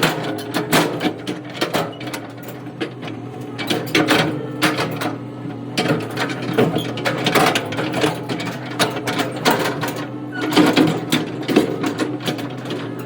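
A machine's engine running steadily with a constant hum, under frequent irregular clanks and rattles.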